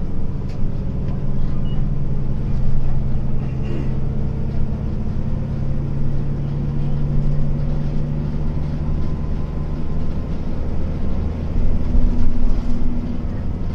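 Hino Blue Ribbon long-body city bus's diesel engine and road noise heard inside the cabin while driving, a steady low engine drone that swells briefly about twelve seconds in. The engine note is the one the uploader says differs slightly from an ordinary Blue Ribbon.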